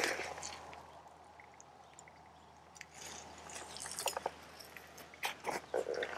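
Footsteps scuffing over dry dirt and grass, quieter in the middle, with a run of separate steps from about four seconds in.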